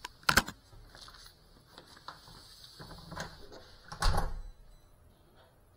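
Handling knocks from an FPV drone being picked up and set down on a hard floor. Two sharp clicks come about a third of a second in, then a few soft bumps, then a louder knock with a low thump about four seconds in as it comes to rest. The motors are not running.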